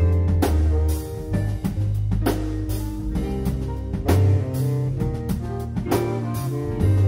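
A band jamming a laid-back groove: keyboard and guitar over a drum kit keeping a steady beat, with deep bass notes underneath.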